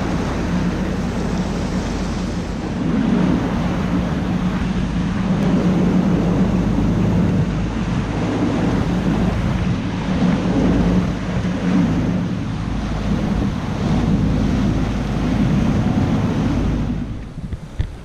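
Motorboat under way at speed: a steady engine drone mixed with water rushing and splashing in the wake and wind buffeting the microphone.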